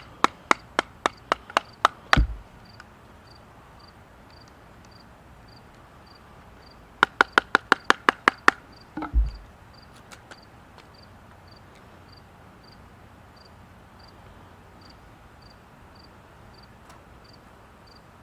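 Batoning with a serrated pocket knife: a piece of wood taps the spine of the knife blade to drive it through a small stick, two quick runs of sharp knocks about four to five a second, each ending in a dull thud. Faint insect chirps repeat steadily underneath.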